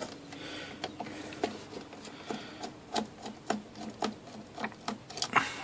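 Phillips screwdriver turning out the small screws on a Honda EU2000i generator's carburetor: light clicks and ticks about twice a second, with soft scraping of the tool and hand against the carb.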